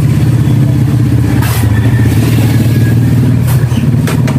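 A small engine running steadily with a fast pulsing low note, shifting slightly in pitch a couple of times.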